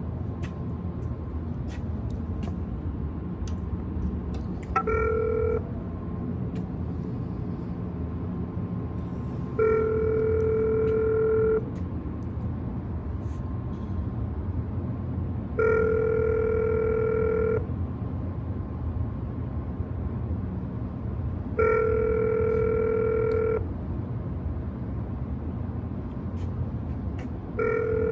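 Phone-style ringback tone from a door intercom call box, the call ringing out: a short ring about five seconds in, then a two-second ring every six seconds with no answer. A steady low hum runs underneath.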